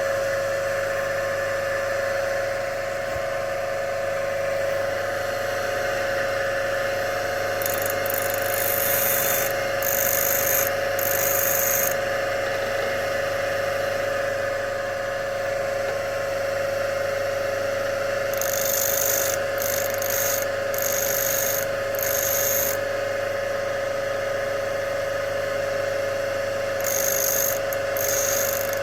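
Bench grinder running with a steady whine while a drill bit's cutting edge is ground on its fine wheel, the grinding heard as several short bouts of high hissing: a third of the way in, around the middle, and again near the end.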